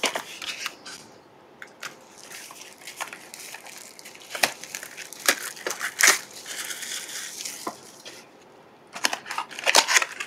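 Crinkling and rustling of foil-wrapped trading-card packs and a small cardboard box being handled as the box is opened and the packs taken out, with scattered sharp crackles and taps.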